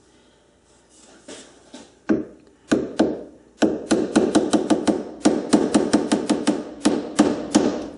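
Hand chisel struck with a hammer to cut into an aluminium part. A few scattered strikes come first, then a quick run of sharp taps, about five a second, through the second half.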